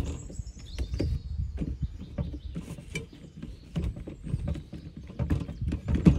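A quick, irregular run of clicks and knocks over a low rumble, with a few thin, high whistling tones drawn out above them.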